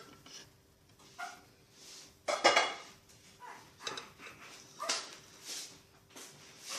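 A dog barking several times in short separate barks, the loudest about two and a half seconds in, over a faint steady hum.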